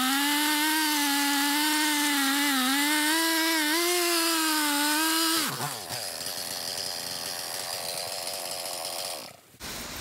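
Husqvarna 395XP's big two-stroke chainsaw engine held at full throttle while cutting through a hickory log, its pitch dipping slightly under load. About five and a half seconds in, the throttle is released and it drops quickly to a lower idle.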